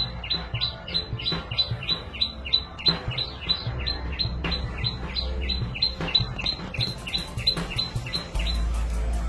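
Background music: a low bass line under a fast, even run of short, high, bird-like chirps, about three a second.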